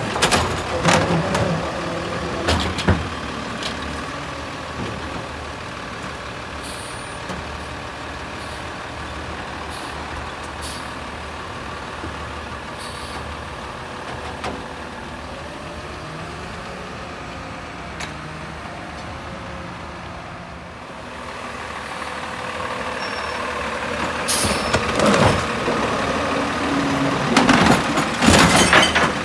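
CCC PenPack automated side loader garbage truck's diesel engine running while its hydraulic arm lifts and tips recycling carts, with loud knocks and bangs of the cart and arm against the hopper in the first few seconds and again near the end. In between, the engine runs more quietly and steadily, with some slow rises and falls in pitch.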